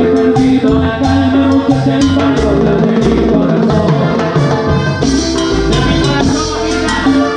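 A live Latin dance band plays at full tilt. Timbales are struck with sticks close to the microphone, over congas, bass and a horn section.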